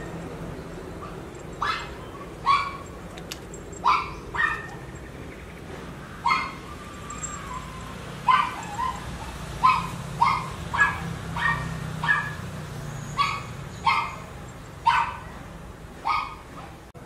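A young animal's short, high-pitched cries, repeated about once a second and sometimes in quick pairs, over a steady low hum.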